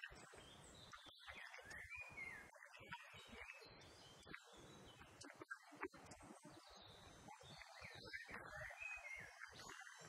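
Faint woodland birdsong over a low hiss, with the audio dropping out in many brief gaps.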